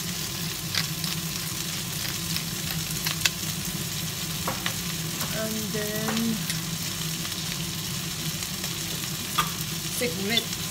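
Chopped vegetables, green peppers among them, sizzling steadily as they fry in a nonstick wok, with a few sharp clicks and taps over the hiss.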